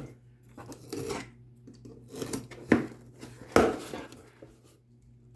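Cardboard shipping box being handled and opened by hand: a string of separate knocks, taps and short scrapes on the cardboard, with a quieter pause near the end.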